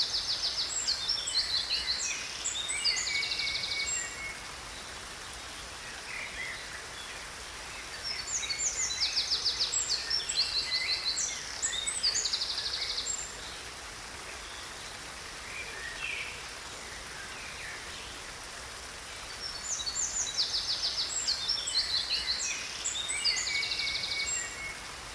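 A songbird sings the same phrase three times, about twelve seconds apart. Each phrase is a few seconds of fast, high trilled notes, and softer chirps come in between, all over a steady hiss of falling water.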